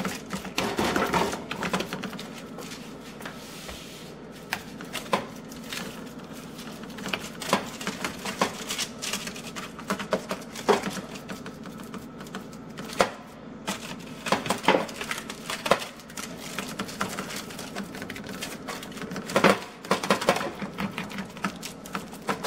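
Hands patting and pressing a wet meatloaf mixture into shape on a foil-lined baking sheet: irregular soft slaps and taps, a few sharper ones, over a steady low hum.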